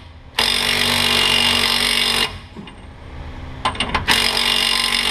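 Makita 18V cordless impact wrench hammering on the pinion nut of the rear differential, in two bursts of about two seconds each, loosening the nut to get the pinion seal out.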